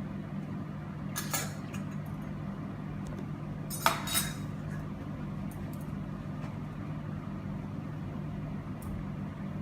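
Light metallic clinks as a stethoscope is handled and wiped clean: a faint click about a second in and a sharper, louder one about four seconds in, over a steady low hum.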